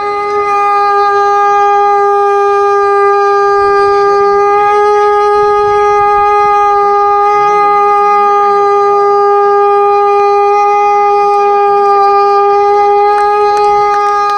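Conch shell (shankh) blown in one long, steady note that holds without a break, with a few faint clicks near the end.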